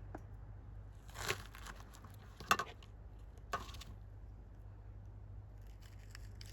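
Three short crinkling rustles, about a second apart, the middle one the loudest.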